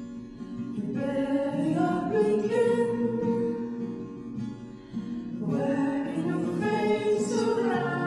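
Background music: a slow song with acoustic guitar and layered singing voices, two long sung phrases.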